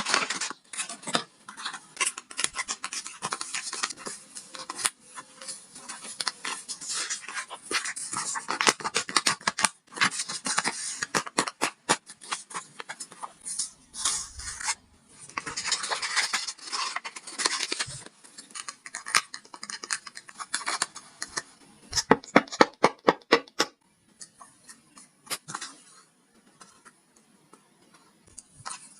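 Paper being handled for a paper craft: rustling and scratching with scissor snips, and a fast run of sharp clicks about three quarters of the way through.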